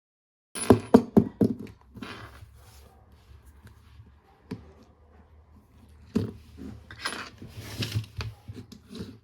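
Small hard parts and tools being handled on a work surface during a phone teardown: a quick run of sharp clicks and taps, then scraping, with another cluster of taps and rubbing near the end.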